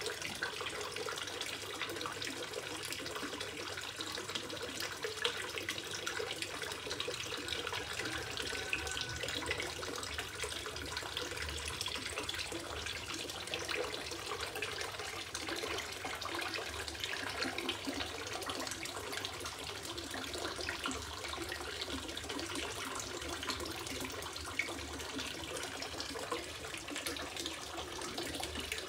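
Water from a turtle-shaped fountain spout pouring steadily and splashing into a small garden fish pond.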